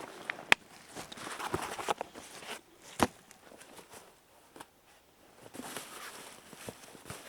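Footsteps and the rustle of conifer boughs on the forest floor, with two sharp clicks about half a second and three seconds in. The rustling grows quieter after the middle.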